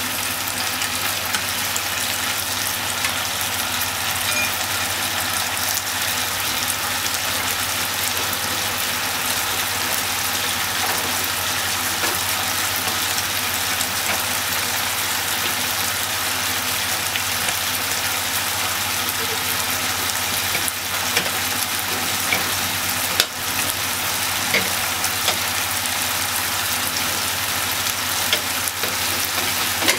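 Pork belly, okra and onion in sauce sizzling steadily in a frying pan, with a few light clicks in the second half.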